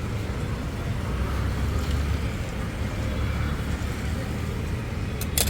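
Steady low rumble of street traffic, with a single sharp clack near the end.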